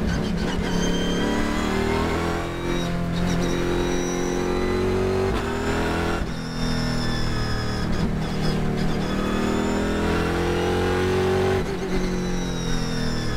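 Cadillac CTS-V.R race car's engine heard from inside the cockpit, accelerating hard and rising in pitch through the gears, with three short dips at the upshifts.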